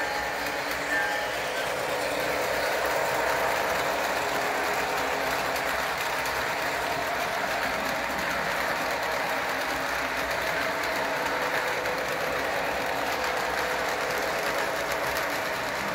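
A model train runs steadily along the track: the even running noise of a model steam locomotive's motor and freight cars' wheels rolling past close by.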